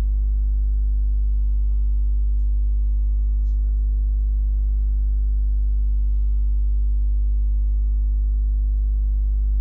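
Steady low electrical mains hum with a stack of evenly spaced overtones, unchanging throughout.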